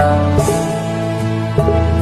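Background music: instrumental notes played in a slow, gentle sequence, changing about every half second.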